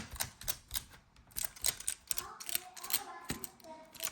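Scotch tape being pulled, pressed down and peeled off again, crackling in a run of sharp, irregular clicks.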